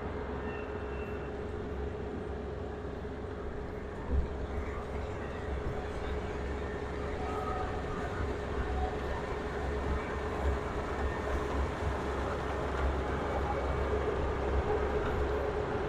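Rice combine harvester running steadily, a continuous machine drone with a low rumble and a steady hum.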